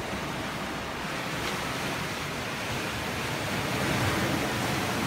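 Sea surf washing onto the shore, a steady rush of water that swells a little about four seconds in.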